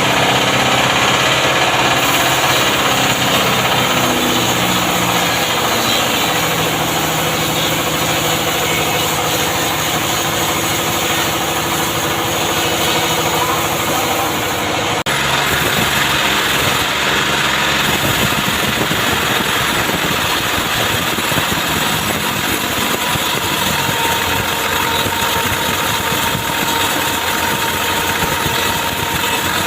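Chainsaw engine running, its speed rising and falling, with an abrupt change about halfway through to a rougher, noisier sound.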